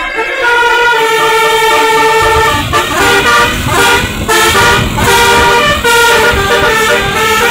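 Basuri telolet multi-tone bus horn playing a melody: a few long held notes, then a quicker run of short notes from about two and a half seconds in. A low rumble sits underneath from about two seconds in.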